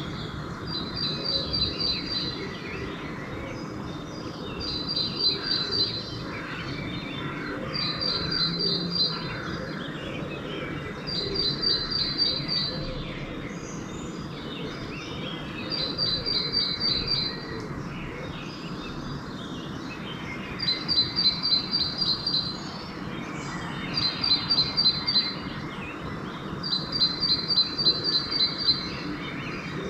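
Pre-dawn bird chorus, with one songbird repeating a short, rapid run of high notes about every three to four seconds, eight times, and fainter calls from other birds between its phrases.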